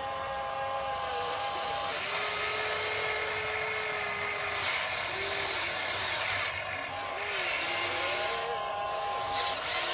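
Small electric motors of a radio-controlled model excavator whining as it works, the whines shifting in pitch and starting and stopping as different movements are driven.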